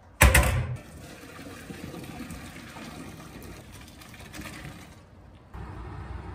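Cooked noodles being drained: a loud knock and splash as the pot is tipped, then a steady pour of water into the sink that stops after about five seconds.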